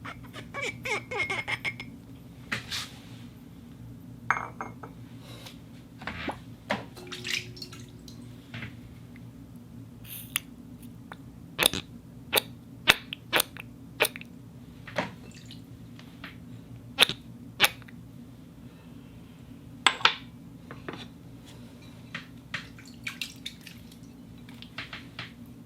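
Glass items being tapped and clinked: a run of sharp knocks at irregular intervals, some ringing briefly, over a steady low hum.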